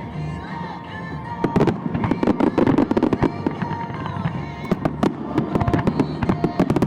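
Finale fireworks: a dense run of sharp bangs and crackling bursts, thickest from about a second and a half in, over music.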